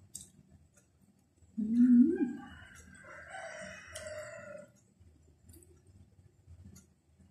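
A rooster crows once, a drawn-out call of about two seconds starting around two seconds in. A short low hum from the eater just before the crow is the loudest sound, with faint clicks of eating.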